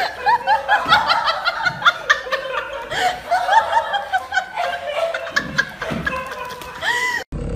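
A person laughing in a rapid run of short, high-pitched bursts, several a second, until it cuts off abruptly near the end.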